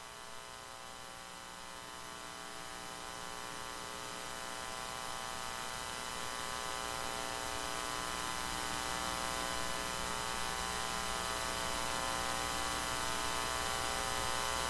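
Steady electrical mains hum, a buzzy stack of many even tones over a faint hiss, slowly growing louder.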